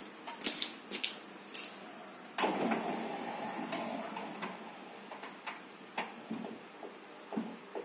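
Automatic bifold sliding-folding door closing. A few light clicks come first. About two and a half seconds in the door's drive starts with a steady mechanical running sound that fades over two seconds as the glass leaves fold shut, and a few clicks follow near the end as the leaves meet and settle.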